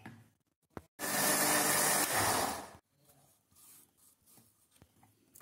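Electric mixer grinder (mixie) run in one short burst of about two seconds, grinding crushed coconut and melted jaggery into a paste; a single click comes just before it starts.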